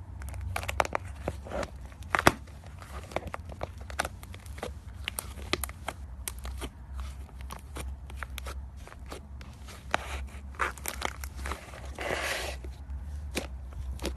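Slime being squeezed and poked by hand, giving many small, irregular sticky clicks and pops, with a longer squelch near the end.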